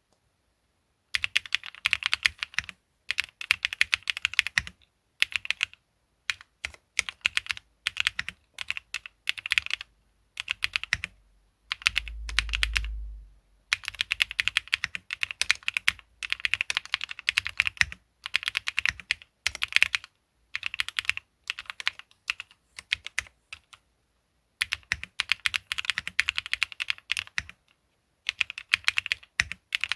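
Typing on a KBD8X MKIII custom mechanical keyboard fitted with Qsenn Apple Mint switches, a polycarbonate half plate, Cherry-profile PBT keycaps, top mount and no foam. Keystrokes come in quick bursts of clicks separated by short pauses, beginning about a second in. A brief low rumble about twelve seconds in.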